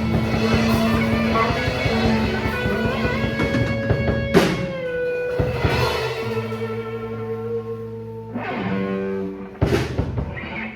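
Guitar music with drums: held guitar notes, one bending down in pitch, with a sharp drum hit about four seconds in and another near the end, the playing slowly getting quieter.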